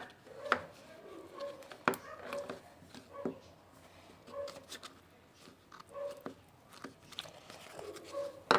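Homemade slime being squeezed and stretched by hand: sharp clicks and short squelching pops about once a second.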